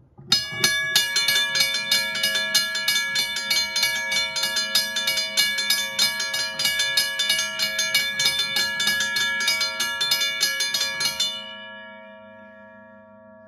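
WABCO and Safetran railway crossing bells, run off batteries, ringing together: their hammers strike the gongs in a rapid, uneven clatter of ringing strokes. About eleven and a half seconds in, the striking stops and the gongs ring on, fading.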